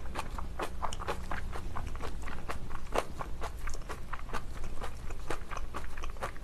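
Close-miked chewing of napa cabbage kimchi: irregular crisp crunching clicks, several a second, mixed with the wet handling of the sauce-coated kimchi and spoon on the dish.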